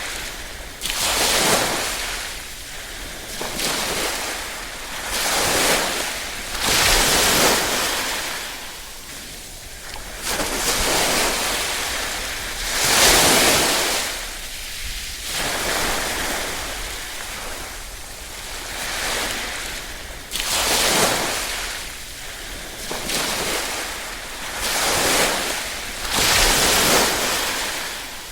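Small ripple waves washing onto a shore, each wash swelling and fading away, a new one about every two to three seconds.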